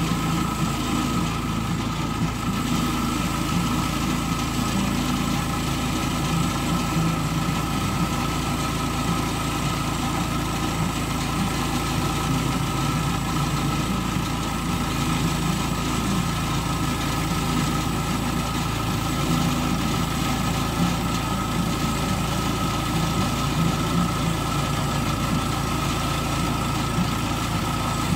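Woodland Mills portable bandsaw mill cutting a log: its gas engine runs steadily under load with a steady high tone above the low engine hum as the band blade is pushed through the wood.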